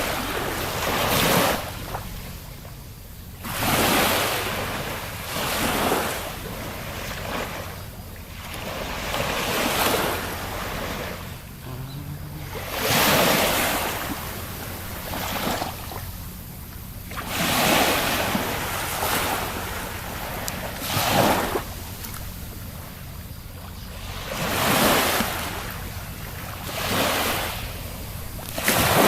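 Sea waves breaking and washing on the shore, each surge swelling and fading, one every two to four seconds.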